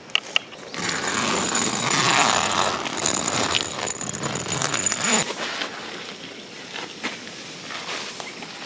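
Tent door zipper pulled open in one long rasp of about four seconds, then stopping abruptly. After it come quieter tent-fabric rustles and a few light clicks as someone crawls out onto gravel.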